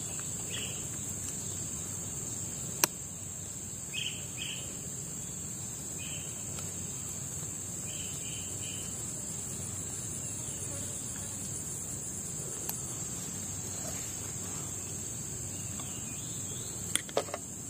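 Steady high-pitched drone of insects, with a few short higher chirps scattered through it. A sharp click comes about three seconds in, and a few more near the end.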